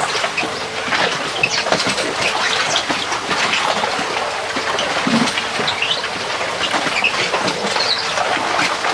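Arrastra ore mill running: heavy drag stones scraping and grinding through wet ore slurry as the steel sweep arms turn, with chains clinking and rattling. A steady drone from its diesel motor and gearbox drive runs underneath.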